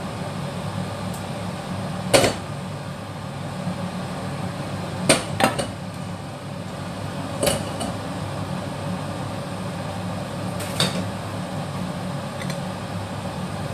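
Steady hum of a kitchen exhaust fan, with five sharp clanks of a pan and utensils, the loudest about two seconds in and a quick pair around the middle.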